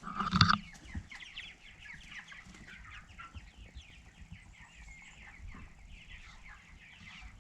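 A flock of four-week-old meat king broiler chicks peeping: many short, high, falling cheeps overlapping continuously. A brief louder sound comes right at the start.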